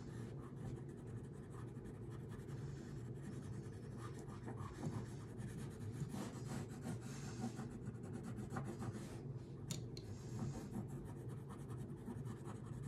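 Wax crayon scratching on paper, colouring in with many quick short strokes; faint.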